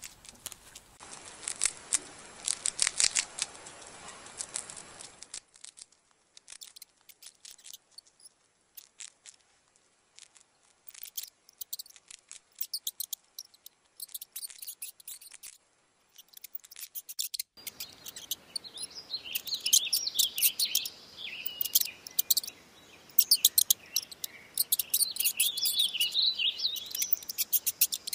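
Sharp, high-pitched clicks and chirps, sparse at first, then a dense run of chirping over the last ten seconds, with a faint hiss under it.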